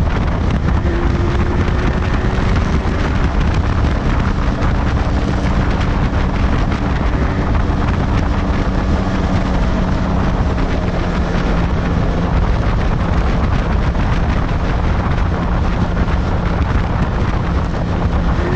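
Heavy wind buffeting on the microphone off the motorcycle's windscreen, over the steady note of a Yamaha two-stroke twin motorcycle engine running at road speed.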